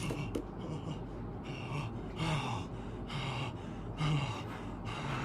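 A person's breathy gasps, several in a row about a second apart.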